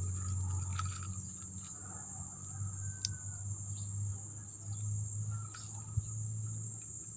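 Steady high-pitched drone of insects trilling, with a low rumble underneath and a few light clicks.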